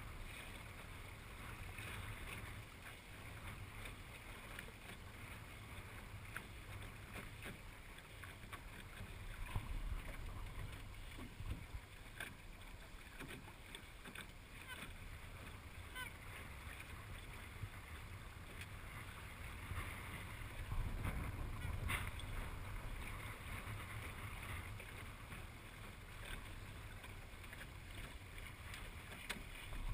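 Wind buffeting the microphone and water rushing along a small sailing dinghy's hull, with occasional light clicks.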